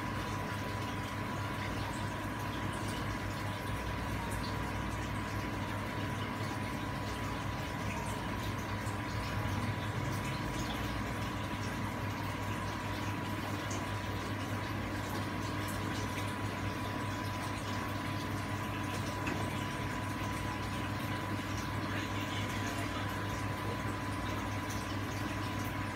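Aquarium air stone bubbling steadily, with many tiny bubble ticks over a steady low hum and a thin high tone.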